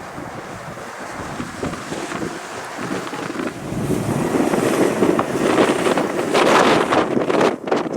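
Wind buffeting the microphone, growing stronger about halfway through and gusting unevenly near the end.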